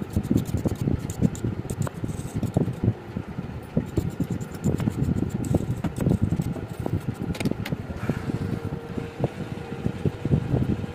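Hot-air rework station blowing over a phone motherboard, a steady fluttering rush of air, as the reballed CPU and eMMC are soldered back onto the board. A few light ticks come in the first seconds, and a faint steady tone joins about eight seconds in.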